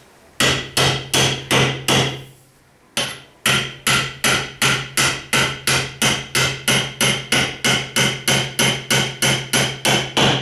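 Steel rod being driven down into a hole in a wooden jig block with quick hammer blows, each blow ringing on the metal. A short run of about six blows, a brief pause about two seconds in, then a long even run at about three blows a second.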